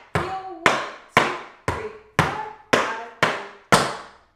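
Tap shoes striking a portable wooden tap board in an even beat: eight sharp taps about two a second, each ringing briefly.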